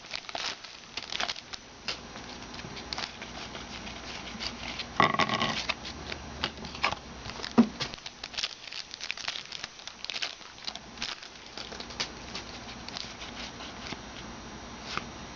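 Football trading cards being flipped through and slid against one another in quick, irregular clicks and rustles, with pack wrappers crinkling. A louder crinkle comes about five seconds in.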